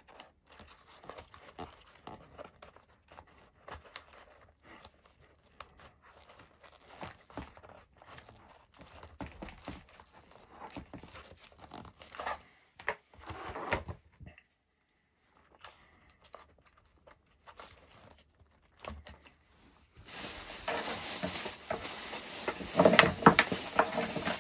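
Hand handling of EPP foam airframe parts and wiring as pieces are test-fitted into a hole in the fuselage: scattered small creaks, rubs and crinkles. A louder stretch of rustling with a few knocks comes near the end.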